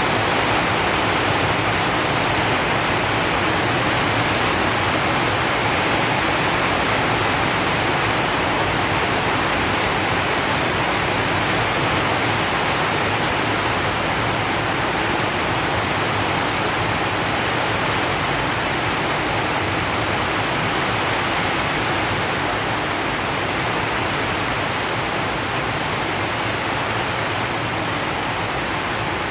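Rain falling steadily on a zinc sheet roof, a dense even hiss with no single drops standing out.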